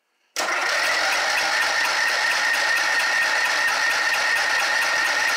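Garden tractor engine cranked by its electric starter, turning over steadily with a fast even rhythm but not firing, with fuel squirted straight into the carburetor.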